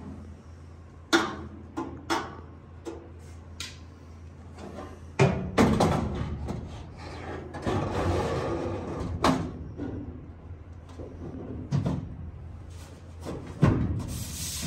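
A steel shelf panel being fitted into a metal workbench cabinet: a run of sharp metal knocks and clanks, the loudest about five seconds in, with a few seconds of scraping around eight seconds in as the panel is slid and hooked into place.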